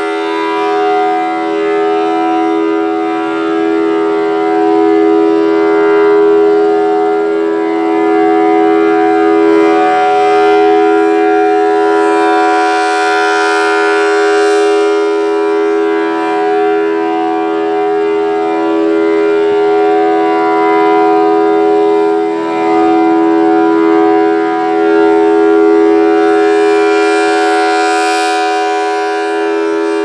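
Federal Signal Thunderbolt 1000 rotating siren sounding a steady alert tone: a two-note chord of about 325 and 408 Hz from its 4/5-port chopper. As the horn turns at about 4 RPM, the sound grows louder and brighter when it faces the listener, a little before halfway and again near the end.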